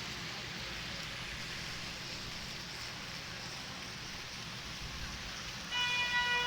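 Steady, even hiss of outdoor city street ambience. Near the end a short steady-pitched tone with several overtones sounds for under a second, the loudest moment.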